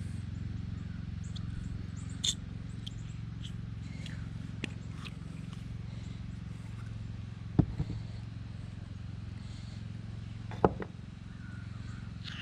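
A few sharp clinks and knocks from brake wheel cylinder parts being handled: one about two seconds in, a close pair a little past halfway, and one more near the end. A steady low hum runs underneath.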